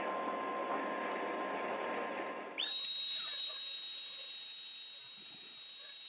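A steady noisy hum, then about two and a half seconds in a high-pitched whine sets in. It glides quickly up in pitch and holds steady over a hiss, like a small high-speed motor spinning up.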